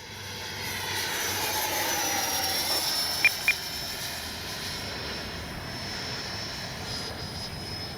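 Electric ducted-fan RC jet (80mm 12-bladed fan on an in-runner motor) flying at about half throttle, a steady whine that swells, dips slightly in pitch as it passes, and eases off after about three seconds. Two short beeps about three seconds in.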